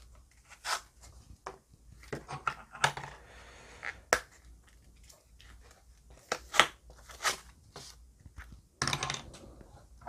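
Leather Zippo lighter pouches being handled and their snap-fastened flaps worked: scattered sharp clicks among rustling of leather.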